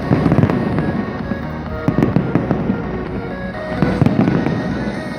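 Fireworks going off in volleys of bangs and crackles, one about every two seconds, with music playing underneath.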